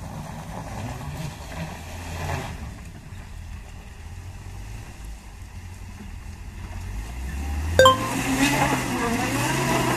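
Suzuki Carry pickup's engine labouring as the truck crawls through deep mud. About eight seconds in there is one sharp metallic clink, and then the engine's pitch rises and falls as it is revved.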